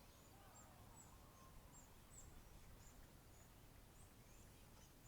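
Near silence: faint background noise with soft, very high chirps repeating about twice a second.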